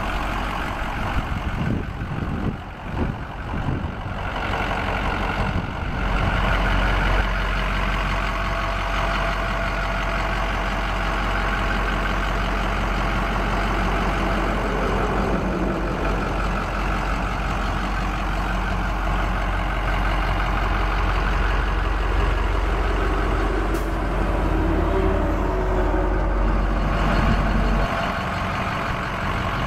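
2005 Ford F-450's 6.0-litre Power Stroke V8 turbo-diesel idling steadily. Its low rumble grows stronger about six seconds in and drops back near the end.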